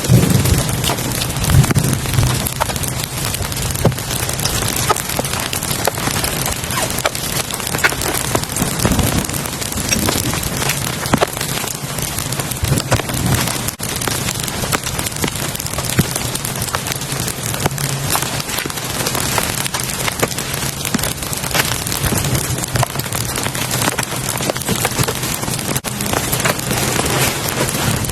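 Heavy rain falling steadily, a dense patter of individual drops hitting a surface close by.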